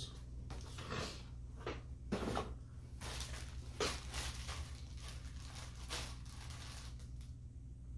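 Rustling and crinkling of a clear plastic bag being handled, with scattered short handling noises that come thickest in the middle, over a steady low hum.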